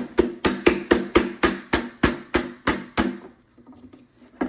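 Repeated sharp knocks on the clear plastic dust cup of a Shark Vertex AZ2002 vacuum, about three to four a second, as the cup is knocked to shake stuck dog hair loose into a trash can. The knocks stop about three seconds in, and one more comes near the end.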